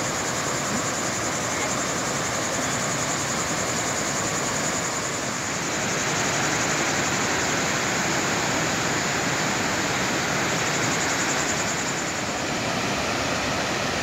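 Steady rush of falling water from the Krka waterfalls' cascades, a little louder from about six seconds in, with a continuous high-pitched buzz above it.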